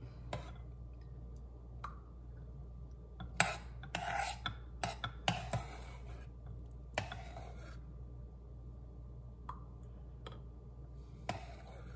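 Metal spoon scraping and clinking against a stainless steel saucepan as thick hot guava jam is spooned into glass jars: scattered clinks and scrapes, busiest a few seconds in.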